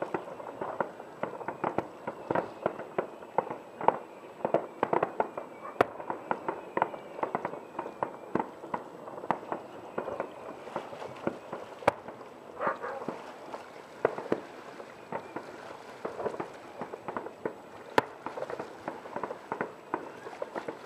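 Fireworks display going off: a continuous run of bangs and crackling, with a few sharper single reports standing out about six, twelve and eighteen seconds in.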